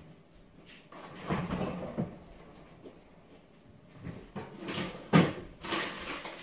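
Kitchen handling sounds: things rustled, moved and set down in bursts, with a sharp knock about five seconds in.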